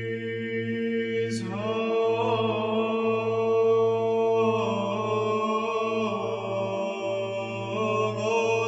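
Background music: slow, chant-like vocal music with long held notes over a steady low drone. A higher line of held notes comes in about a second and a half in.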